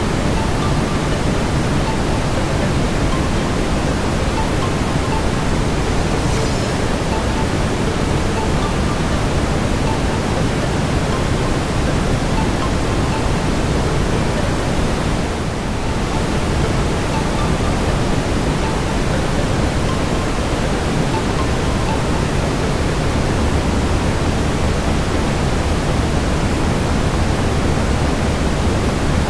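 Steady brown noise: a deep, even rushing hiss, heaviest in the low end, with a brief slight dip about halfway through.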